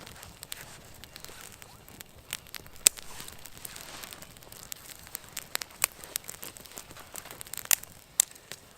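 Small wood fire of kindling crackling, with irregular sharp snaps over a faint hiss, the loudest about three seconds in and again near the end.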